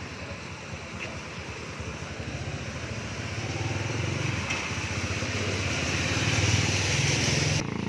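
A motor vehicle engine running close by, getting louder toward the end, then cut off abruptly just before the end.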